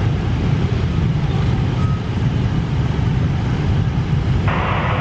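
Engines of a dense stream of motorbikes and scooters running as they crawl across a railway level crossing, making a steady low traffic rumble. A louder rushing hiss starts near the end.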